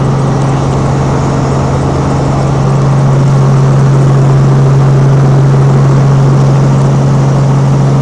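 Helicopter engine and rotor running, heard from inside the cabin: a loud, steady drone with a strong low hum, growing a little louder about three seconds in.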